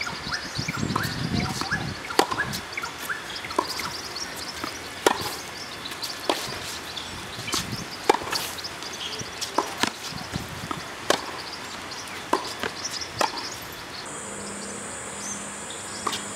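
Tennis rally on a hard court: a quick string of sharp pops from racket strokes and ball bounces, some much louder than others.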